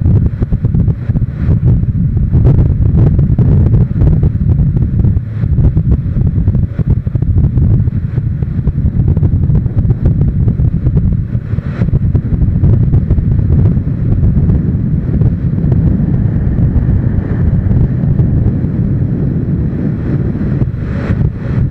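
Wind buffeting the microphone of a camera on a moving motorcycle: a loud, steady low rumble with brief gusts, with the motorcycle's running mixed in underneath.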